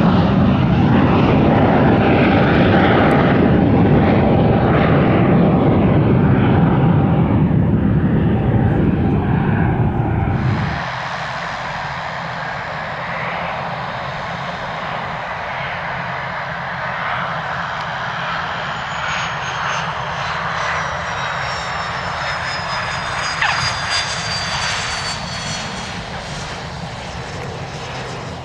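Pilatus PC-24 business jet's twin turbofan engines: a loud jet rumble, cutting off suddenly about ten seconds in. Quieter engine noise follows as the jet approaches and lands, with high whines falling in pitch in the second half.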